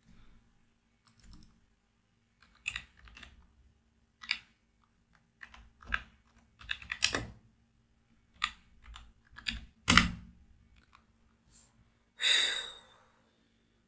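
Irregular clicks and taps of computer keys, some in quick runs and some single, with a short hissing noise near the end.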